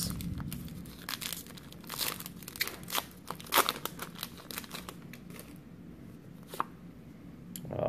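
Foil booster-pack wrapper of a Pokémon trading-card pack crinkling and tearing as it is ripped open by hand. There are dense sharp crackles for about the first five seconds, then only a few, with one lone sharp tick near the end.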